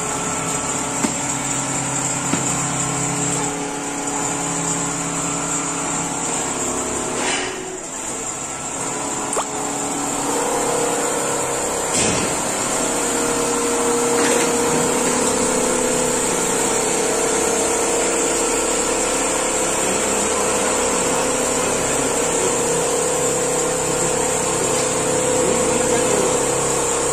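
Richpeace single-head quilting machine running, its sewing head stitching a mattress panel: a steady mechanical hum with a constant high whine, its pitch changing once about ten seconds in.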